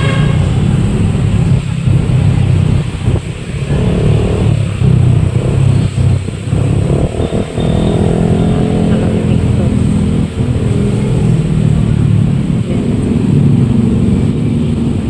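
Motorcycle engine running steadily while riding through city traffic, with road and wind noise and the sound of nearby vehicles passing.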